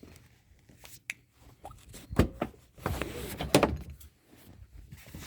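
A car's door and interior being handled: a series of separate clunks and clicks with some rustling, the loudest about two and three and a half seconds in.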